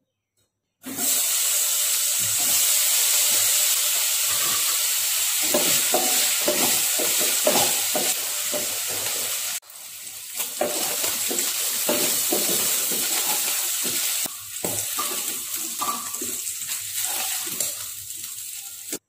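Sausage, chicken and mushroom pieces sizzling in hot oil in a nonstick kadai, stirred with a wooden spatula in repeated strokes. The sizzle starts about a second in, breaks off for a moment near the middle, then carries on.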